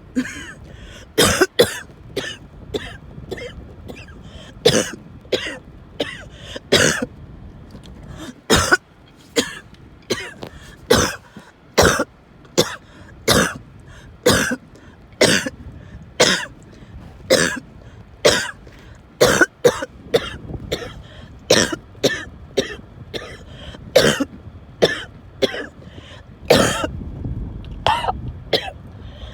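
A person in a prolonged coughing fit: sharp, hacking coughs come about one to two a second without let-up, with rasping breaths between them.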